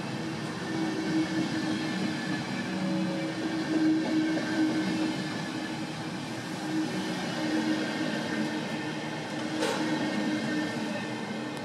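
Intercity passenger coaches rolling past at close range: a steady rumble of wheels on rail with a faint steady hum of tones. There is a single sharp click about ten seconds in, and the sound fades near the end.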